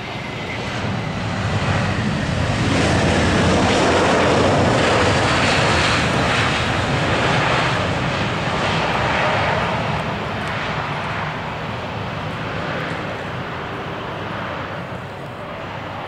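Airbus A320's CFM56-5B engines roaring just after touchdown, swelling loudly for several seconds as reverse thrust is applied, then easing off to a lower, steady rumble as the airliner slows on the runway.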